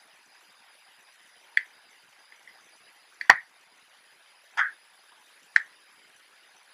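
Four short, sharp clicks of a precision screwdriver tip prying and catching at the plastic front cover of a Canon AF35M II camera, with a couple of fainter ticks between; the click about halfway through is the loudest.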